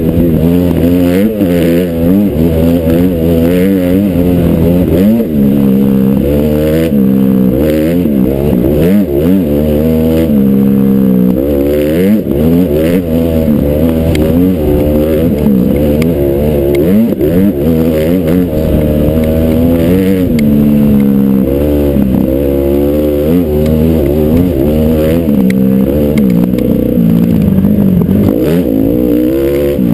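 Honda CRF450R dirt bike's single-cylinder four-stroke engine revving up and down as it is ridden hard, its pitch rising and falling every second or two with throttle and gear changes.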